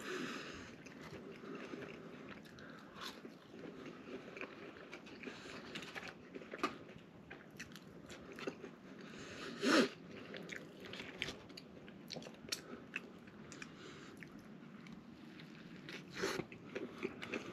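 Close-miked chewing of a fast-food burger: wet, soft mouth sounds with scattered sharp clicks and smacks, the loudest about halfway through. Near the end a fresh bite into the sandwich brings a quick run of crunchy clicks.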